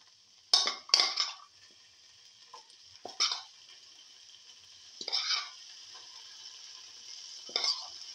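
Metal spoon scraping and knocking against a speckled non-stick frying pan five times, a second or two apart, while chili-coated bitter gourd pieces sizzle faintly and steadily in a little hot oil.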